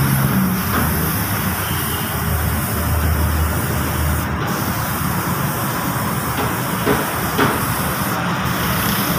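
Air-powered gravity-feed paint spray gun hissing steadily as it sprays paint onto a car's front bumper and fender. Two short clicks sound a little after seven seconds.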